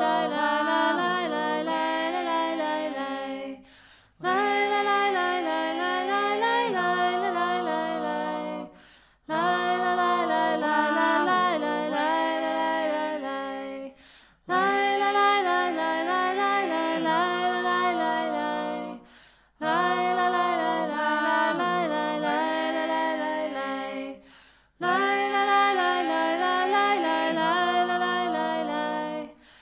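Background music: unaccompanied singing in repeated phrases about five seconds long, each separated by a brief pause.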